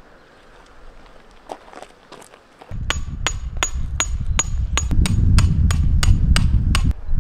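A hammer driving a metal tent peg into the ground: a run of about eleven sharp strikes, about three a second, starting about three seconds in, the first few with a faint metallic ring, over a low rumble.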